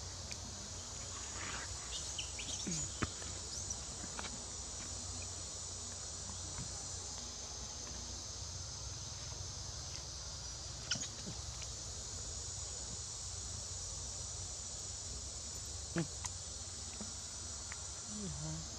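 Steady high-pitched chorus of insects, with a few short chirps and clicks scattered through it.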